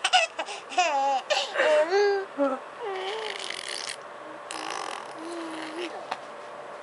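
Baby laughing in quick, high-pitched bursts, trailing off after about two seconds into a few soft coos.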